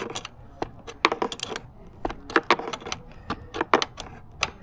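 Irregular small metallic clicks and taps, a few a second: a hex key working a screw on the scooter's handlebar brake-lever mount as it is tightened.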